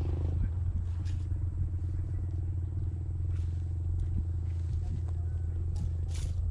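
A small engine running steadily at a low, even pitch. A few brief sharp noises sound over it, the strongest near the end.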